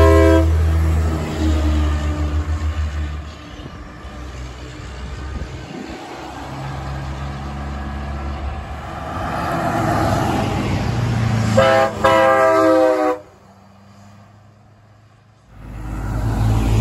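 Semi-trucks' air horns and diesel engines. A multi-note horn chord ends just after the start over a big rig's deep diesel rumble. Traffic passes, another horn chord sounds for about a second and a half about two-thirds of the way through, and after a brief dip a truck's diesel rumble rises near the end.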